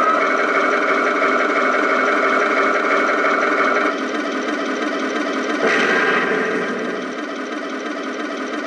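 Tamiya 1/16 RC Panther's sound unit playing a steady tank-engine idle through the model's small speaker, thin and with no deep bass. For about the first four seconds the turret traverse motor whirs on top as the turret swings round, and a brief louder surge comes about six seconds in.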